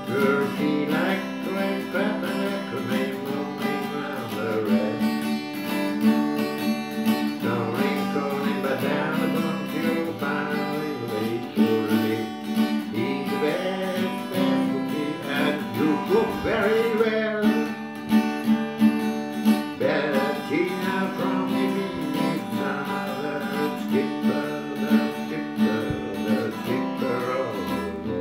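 Acoustic guitar played solo in an instrumental passage, with picked and strummed notes over a sustained low note.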